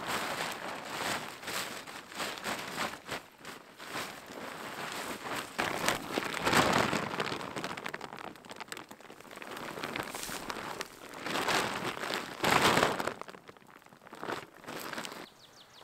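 Stiff painted tent fabric rustling and crinkling as it is folded and stuffed into a bag, in irregular bursts with two louder bouts, about halfway and three quarters through.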